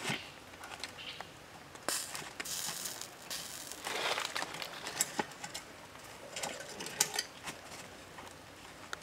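Glowing wood embers crackling and popping in irregular sharp ticks, with a few brief hissing sizzles as fat drips from the grilling chicken thigh onto the coals.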